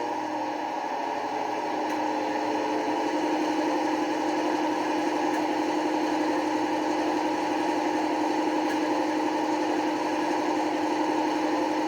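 Sound decoder of an Accurascale Class 55 Deltic model locomotive playing the diesel engine idle through the loco's small speaker, a steady hum that settles in the first second or two and then holds evenly.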